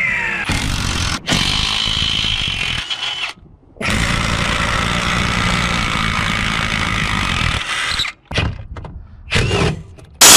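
Impact wrenches hammering on bolts through long impact sockets in several separate bursts, the longest about four seconds, with abrupt cuts between them. A motor whine rises briefly near the end as a wrench spins up.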